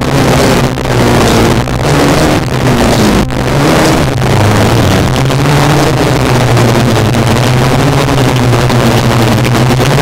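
Loud electronic drone-noise music from live sound equipment. A dense hiss sits over a sustained low hum that wavers slightly in pitch, with several brief dropouts in the first few seconds.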